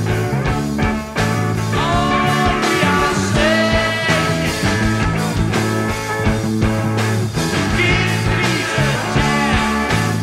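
Rock music: a lead line with long sliding notes over steady bass and drums.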